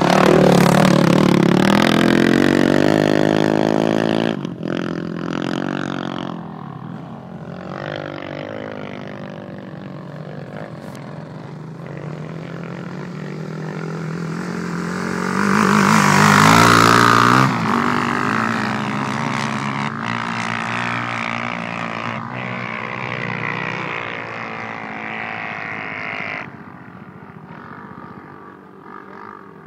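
Sport quad engines revving hard as ATVs climb a steep sand dune, the pitch rising and falling with the throttle. One quad passes close about halfway through and is loudest then. The engine noise drops off sharply a few seconds before the end.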